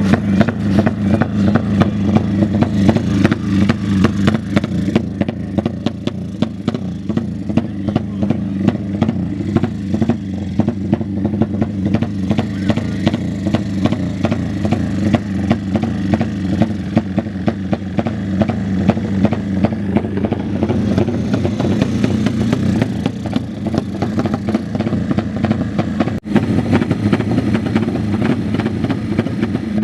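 Motorcycle engines running loudly and steadily, with a fast firing rhythm. The sound breaks off for an instant about 26 seconds in.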